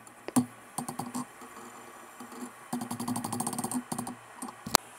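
Hammer taps on a bob punch against hot steel on an anvil, setting the cap-catcher tab of a forged bottle opener. Scattered clicks, a quick run of rapid taps in the middle, and one sharper strike near the end.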